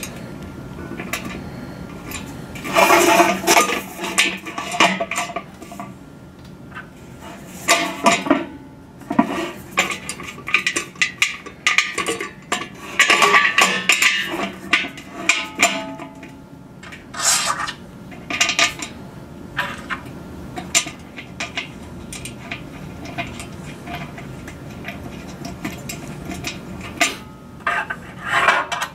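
Small metal hardware (nuts, washers and bolts) clinking and rattling in irregular clusters as it is handled and threaded by hand onto the mounting bolts of a dish antenna's bracket.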